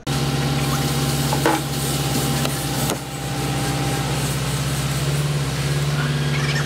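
Engine of a truck-mounted UNIC hydraulic crane running steadily to power the crane, a constant hum. There is a sharp knock about one and a half seconds in and another near three seconds.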